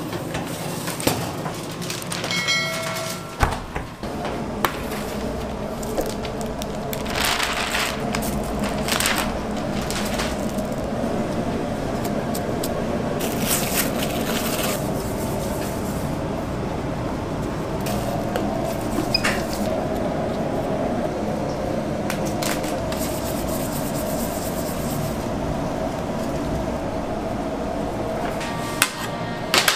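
Steady hum and rush of commercial bakery machinery, with a few knocks and clatters of metal baking trays being handled. There is a brief pitched beep about three seconds in.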